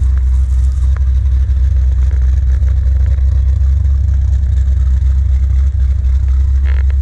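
1979 Corvette L82's 350 V8 idling steadily, heard at the tailpipes with a low, even exhaust note; the engine is running smoothly, which the owner calls better than ever.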